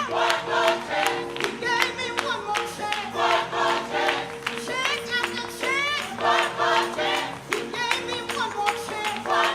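Gospel worship song: voices singing over steady held chords.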